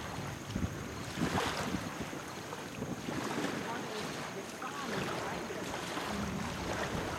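Wind buffeting the microphone over small waves lapping in shallow open water, a steady rushing noise with uneven low rumbles.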